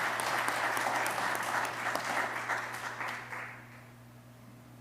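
Congregation applauding, the clapping dying away about three and a half seconds in and leaving a faint low hum.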